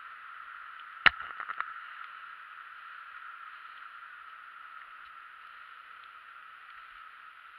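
A sharp knock about a second in, followed by a quick rattle of smaller clicks, as the mounted camera and vehicle jolt over a bump in the road. Underneath runs a steady, muffled hiss of tyres on a wet road.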